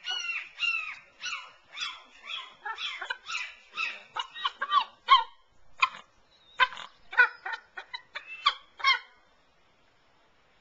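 Bald eagle calling: a rapid series of high, down-slurred piping calls, about two to three a second, that become shorter and sharper about four seconds in and stop about nine seconds in.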